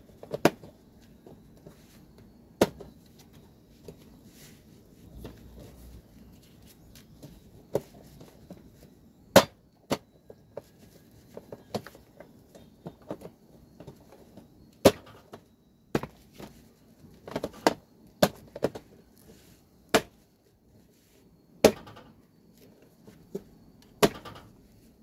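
The plastic snap-fit clips of a Panasonic SR-SY106 IH rice cooker's outer casing click into place as the top cover is pressed down onto the body by hand. It is a string of sharp clicks at irregular intervals, over a dozen in all.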